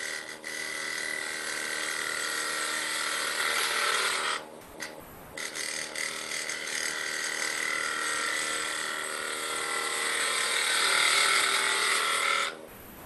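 Wood lathe spinning a wooden blank while a gouge cuts it: a steady hissing shaving sound over the hum of the lathe motor. The cutting drops away for about a second roughly four seconds in, and again near the end.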